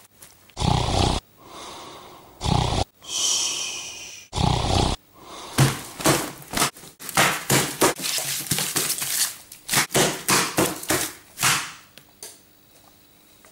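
A person snoring: three loud, rasping snores in the first five seconds, with a whistling breath between the second and the third, then a fast run of short, noisy breaths that stops about twelve seconds in.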